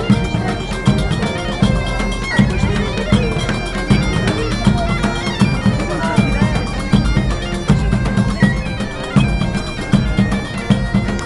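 Live medieval-style music: bagpipes playing a melody over steady drones, with a group of large drums beating a steady rhythm.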